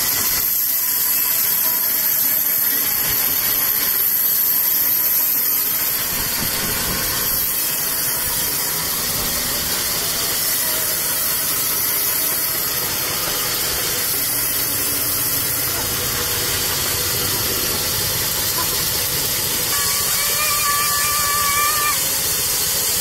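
Large belt-driven vertical band saw ripping a koroi (siris) log: a steady, loud hiss of the blade cutting through the wood over the running saw.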